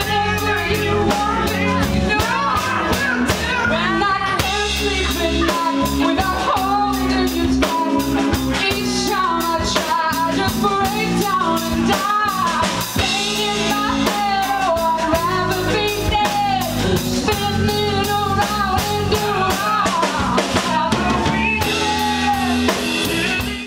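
Live band playing a song: a woman singing over a drum kit and electric guitar, with a second voice or instrument at another microphone. The music stops abruptly at the very end.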